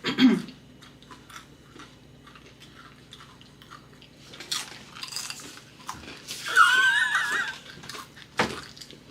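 People chewing a super-hot chip, with wheezing breaths and small mouth noises. A short low groan comes right at the start, and a loud, high, wavering whine about six and a half seconds in.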